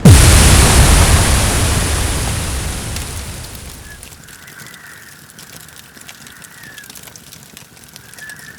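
Synthesized explosion from the KORG iMS-20 synthesizer app: a sudden boom with a deep rumble that dies away over about four seconds, followed by faint scattered crackling.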